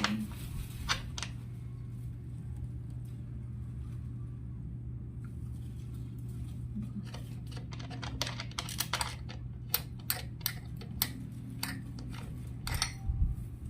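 Scattered light clicks and taps of screws and chair parts being handled and fitted together during assembly, coming thicker in the second half, over a steady low hum.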